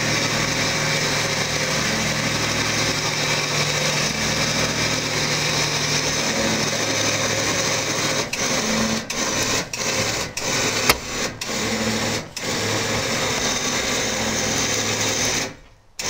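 A small motor runs steadily while the snowmobile ramp tilts down with the sled on it. It stops briefly several times in the second half and cuts off near the end.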